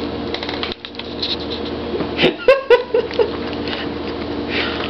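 A kitten's short high mews, about five quick calls within a second about halfway through, over a steady background hum.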